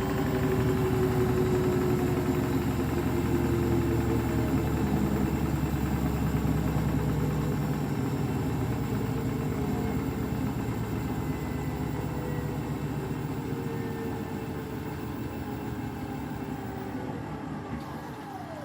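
Beko WTK104121W washing machine spinning an unbalanced load, its motor whine gliding slowly lower as the drum winds down. The deep rumble drops away about halfway through and the sound fades gradually, with a quick falling whine near the end.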